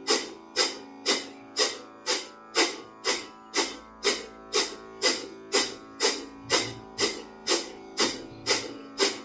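Kapalabhati breathing: short, forceful exhales through the nose at an even pace of about two a second, each a sharp puff that quickly dies away, over soft guitar music.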